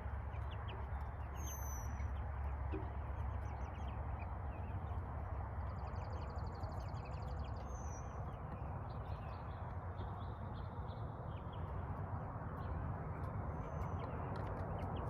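Young chickens (pullets) making soft scattered chirps and peeps over a steady low rush of background noise, with a brief rapid trill about six seconds in.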